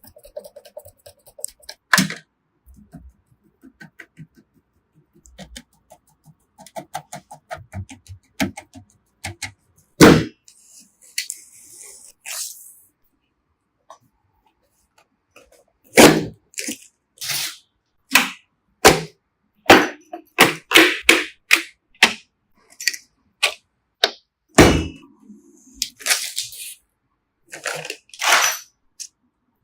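A series of sharp clicks, taps and knocks at irregular intervals with silent gaps: computer parts being handled and clicked into place while a PC is assembled. A few knocks stand out as louder than the rest.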